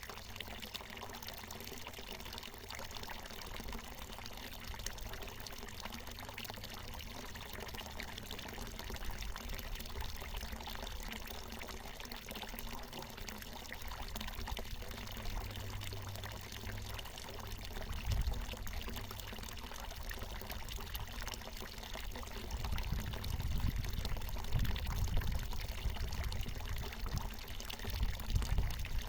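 Water from a natural mountain spring pouring steadily in a small falling stream. Low rumbles come and go in the second half.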